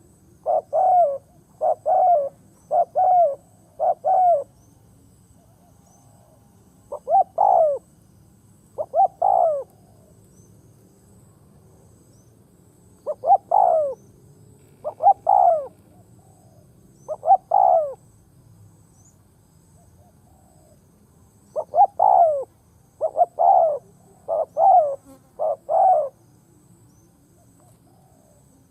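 A decoy spotted dove cooing, the call used to lure wild doves. Its short, repeated coo phrases come in bouts, with pauses of a few seconds between them.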